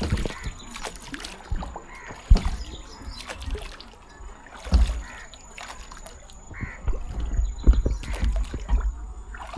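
Rowing boat moving on the river: irregular knocks and splashes from the oars and hull, with birds calling now and then.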